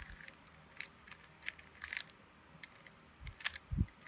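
3x3 Rubik's cube being turned by hand: scattered plastic clicks and clacks as its layers are rotated, the loudest two near the end.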